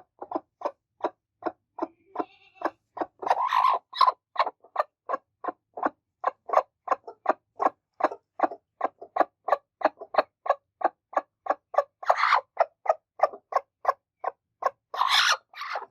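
Broody hen clucking in a steady run of short clucks, about three or four a second, with louder, harsher squawks about three seconds in, near twelve seconds and near the end.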